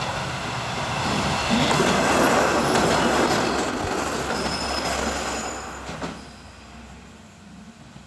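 A JR Shikoku 1000 series diesel railcar passes close by, its wheels running on the rails. The noise builds over the first couple of seconds. A thin, high wheel squeal rides on top for a second or two before the train noise falls away quickly, about six seconds in.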